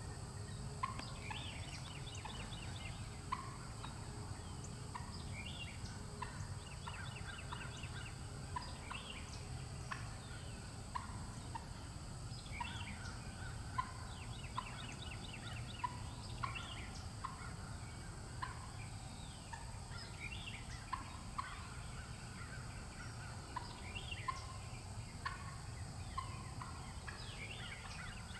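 Wild turkey gobbling amid woodland birdsong: many short chirps about a second apart and quick rattling trills recurring, over a low steady rumble.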